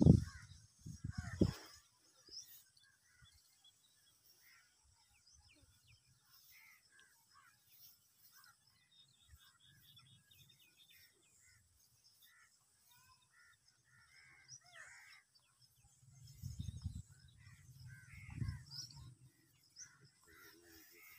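Grass and bush leaves rustling as a man crouches and shifts in the undergrowth, loudest in the first second or two and again a few seconds before the end. Birds call in the background throughout in short scattered notes.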